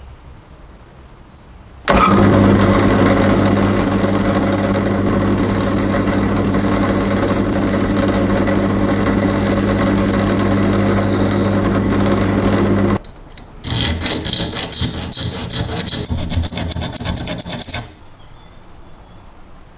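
An electric power tool's motor runs steadily with a low hum for about eleven seconds, then stops. A couple of seconds later comes about four seconds of rough, uneven grinding with a high whine, typical of abrasive work on metal.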